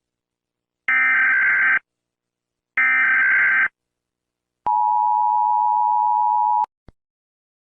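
Emergency Alert System tones: two raspy data bursts of about a second each, the EAS header, then a steady two-tone attention signal held for about two seconds that cuts off suddenly.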